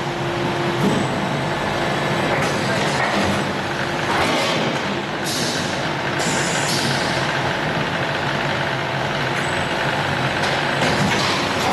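Rotor aluminium die casting machine running: a steady mechanical din with a low hum and small knocks, and two short pneumatic air hisses about five and seven seconds in.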